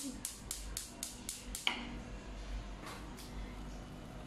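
Gas stove's spark igniter clicking rapidly, about four sharp clicks a second, stopping about two seconds in, with two more single clicks a second later.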